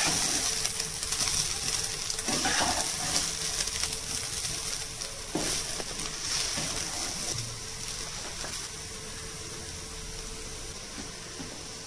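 Goat blood poriyal still sizzling in a nonstick frying pan after the stove has been switched off, the sizzle slowly dying away, with a few scraping strokes of a metal slotted spatula in the first half.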